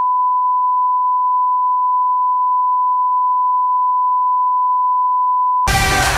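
A steady, unchanging pure test tone, like a long beep, that cuts off suddenly near the end as music starts.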